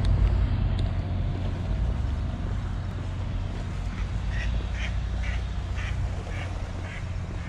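A duck quacking repeatedly, about two short quacks a second starting about four seconds in, over a steady low rumble.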